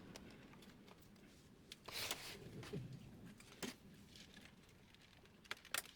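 Faint handling sounds of printer parts being worked on: a short scrape about two seconds in, a click a little later, and a quick run of sharp clicks near the end.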